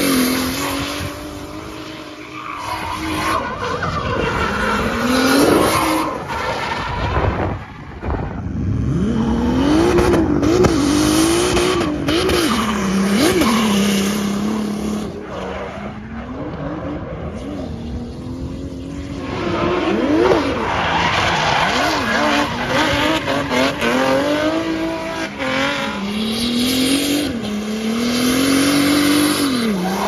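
Toyota 7M-GTE turbocharged inline-six in a BMW E36 drift car, revving up and down repeatedly through drifts, with tyres squealing and sliding.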